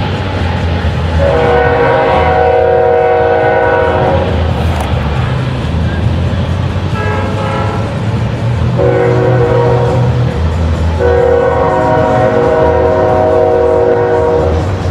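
Freight train horn sounding four blasts: a long one, a short one, then two longer ones. Under it the steady low rumble of hopper cars rolling past.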